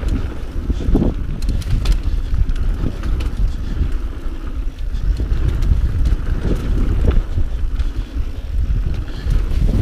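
Mountain bike descending a dirt singletrack: wind buffeting the microphone and a steady rumble from the tyres on the trail, with scattered clicks and rattles from the bike over bumps.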